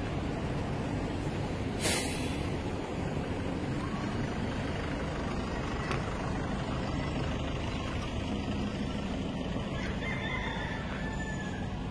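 Steady low rumble of vehicle engines, with one short, sharp hiss about two seconds in.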